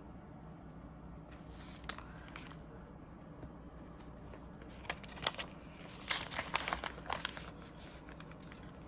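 Clear plastic zip pouch in a cash binder being handled and opened as a bill goes in: faint plastic crinkling, with a flurry of crisp crinkles and ticks a little past the middle.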